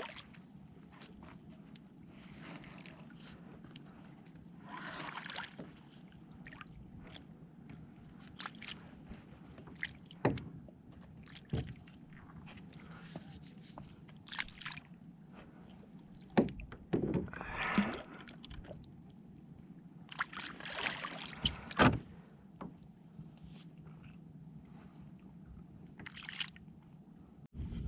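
Water sloshing and splashing around a small kayak at sea, with a few louder swishes and several sharp knocks against the hull.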